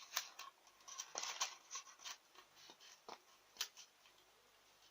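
Faint handling sounds: a string of light clicks and soft rustles, most of them in the first four seconds.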